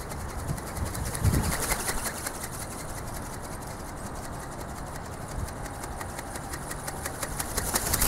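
Flapping-wing ornithopter's small brushless motor and gear drive beating the wings, heard as a fast, steady mechanical ticking. Wind rumbles on the microphone, with gusts about a second in and again at the end.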